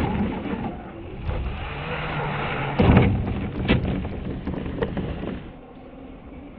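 Traxxas Rally VXL 1/10-scale electric RC car with its brushless motor, driving hard through snow: motor whine and tyres churning snow, loudest about three seconds in. It falls off to a fainter hum after about five and a half seconds as the car heads away.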